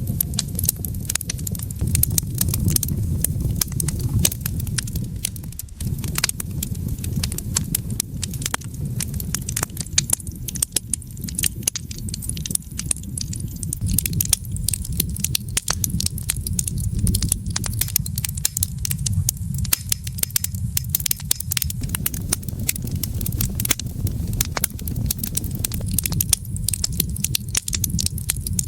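Campfire burning with frequent irregular crackles and sharp pops over a steady low rumble.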